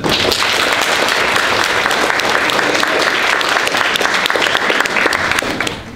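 Audience applauding, starting at once and dying away just before the end.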